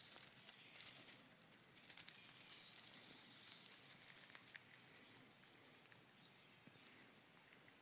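Near silence: faint patter and rustle of small terriers running over dry fallen leaves, thinning out after the first few seconds.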